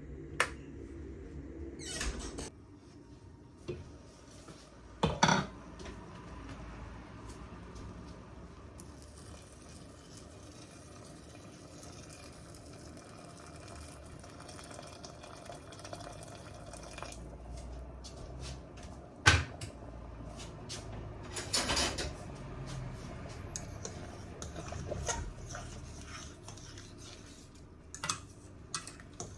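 Pots, lids and utensils knocking and clattering while rice is prepared, with a stretch of running or pouring water in the middle.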